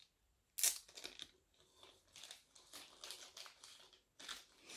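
Packaging crinkling and rustling as it is handled, a run of short, irregular faint rustles while the camera battery is unpacked.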